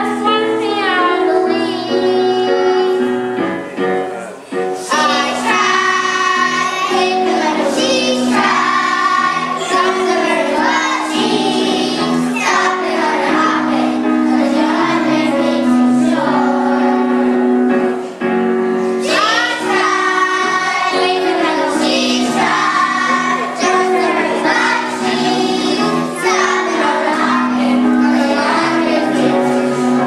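Children singing a song with instrumental accompaniment.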